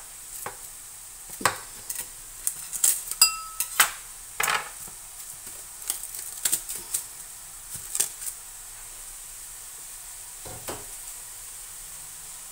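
Plastic cling film crinkling and crackling as a sheet is pulled from the roll, cut off and smoothed flat by hand, with scattered crackles and a few short squeaks, busiest in the first half. A faint steady hiss of mushrooms sizzling in a frying pan runs underneath.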